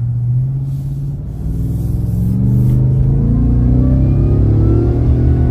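Ford Raptor R's supercharged 5.2-litre V8 accelerating at about 40–50% throttle, fitted with an S&B intake. It holds a steady note at first, then the revs climb steadily from about a second and a half in.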